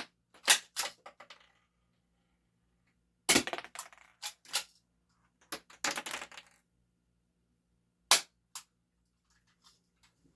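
Game Face M311 full-metal spring-powered airsoft pistol being cocked and fired by hand: several separate groups of sharp metallic clicks and clacks with pauses between.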